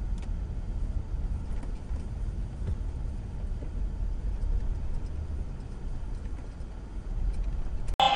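Low, steady rumble of a car's engine and tyres heard from inside the cabin through a dashboard camera's microphone, with a few faint ticks.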